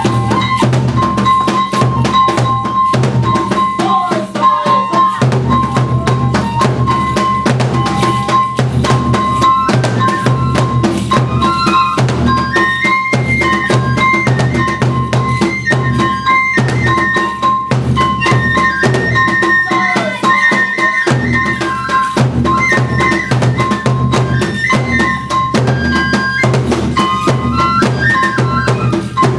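Kagura ensemble music: taiko drums beating continuously under a high, stepping melody from a Japanese transverse flute.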